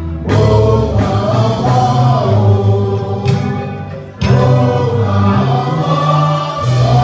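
Gospel choir singing with musical accompaniment, the singing breaking off briefly a little past four seconds in before carrying on.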